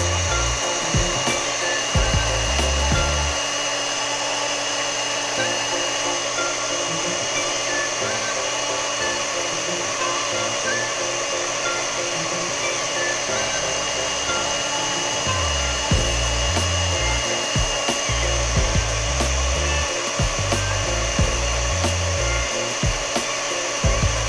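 Electric blender motor running steadily at speed with a constant high whine, blending tomatoes into juice.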